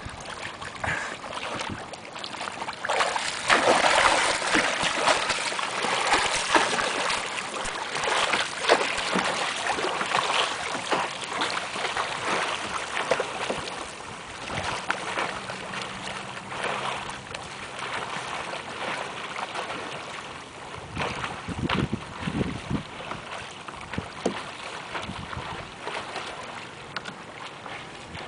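Lake water splashing and lapping around a kayak, with irregular splashes that are loudest in the first half, and some wind on the microphone.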